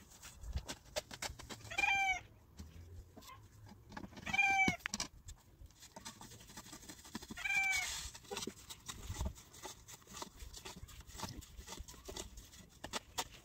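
A small animal calls three times, short arching cries a few seconds apart, over scattered light clicks and taps.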